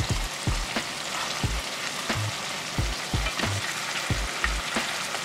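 Deer backstrap pieces sizzling in butter, onion and garlic in a cast iron skillet, with irregular clicks and knocks of metal tongs against the pan as the pieces are flipped.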